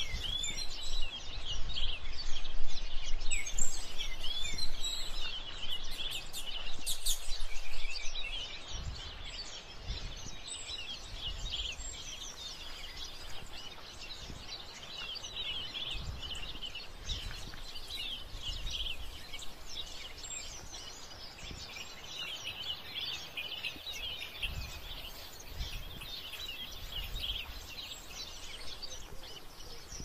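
Many small birds chirping at once, a dense and continuous mix of short high chirps. Low thumps on the microphone are heaviest in the first eight seconds.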